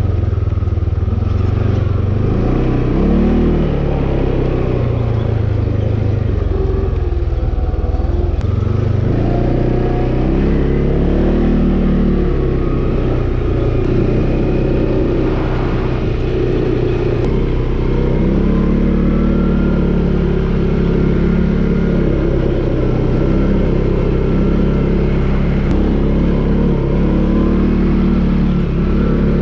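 ATV engine running while being ridden, its pitch rising and falling as the throttle opens and closes.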